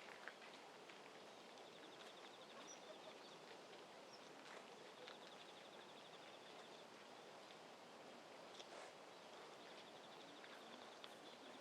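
Near silence: faint outdoor ambience, with a faint high, rapidly pulsing trill that comes and goes in stretches of a few seconds, and a few soft ticks.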